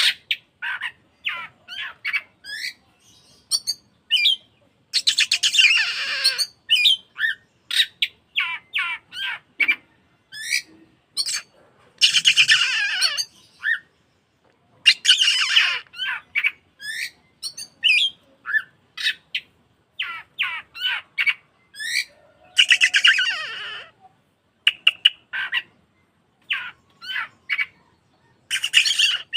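Oriental magpie-robin (kacer) singing: quick, clear whistled notes broken by harsh rasping bursts of a second or two, which come about four times.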